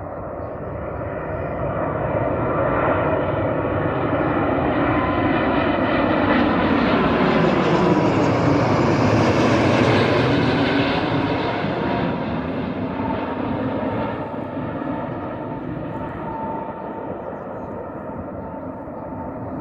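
Airbus A330 airliner passing low overhead on final approach, its jet engines growing louder to a peak about nine seconds in and then fading as it moves away. The engine whine slides down in pitch as the plane passes over.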